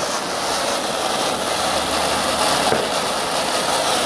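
Ground fountain firework spraying sparks with a steady, loud hiss.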